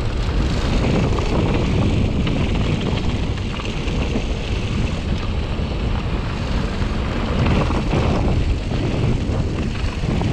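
Wind buffeting an action camera's microphone while an Ibis Ripmo AF mountain bike rolls fast down a dirt and gravel trail, its tyres rumbling over the ground. The noise is loud and steady throughout.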